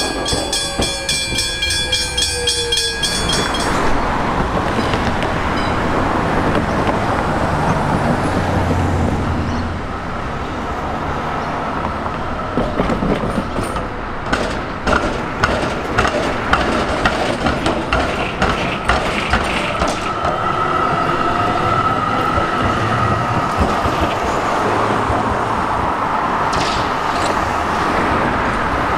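Electric suburban train running past, with a falling motor whine at first, then a run of sharp clicks from its wheels crossing rail joints about halfway through, and a thin steady squeal soon after.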